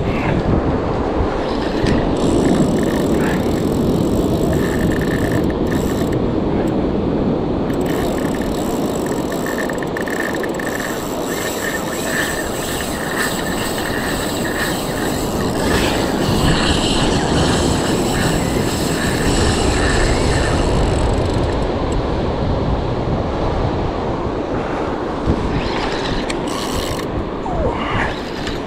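A large surf spinning reel working under the load of a hooked bronze whaler shark: its drag and gears run with a thin whine that stops about three-quarters of the way through, over wind rumble on the microphone and surf.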